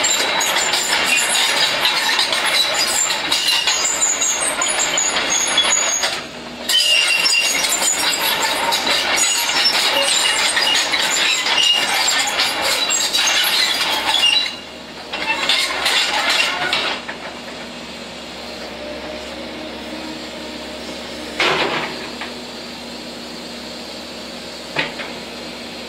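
Sumitomo SH120 hydraulic excavator at work: loud metallic clanking and rattling of its steel crawler tracks and linkage for most of the time, dying down about two-thirds through to the diesel engine running steadily, with two single knocks near the end.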